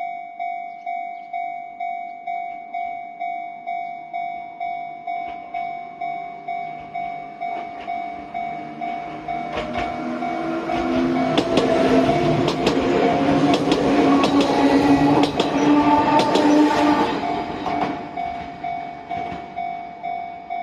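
Japanese level-crossing alarm bell ringing steadily at about two strikes a second while an Enoshima Electric Railway train passes. The train's rolling noise and wheel clicks over the rail joints build about eight seconds in, are loudest through the middle, and fade near the end, while the bell keeps ringing.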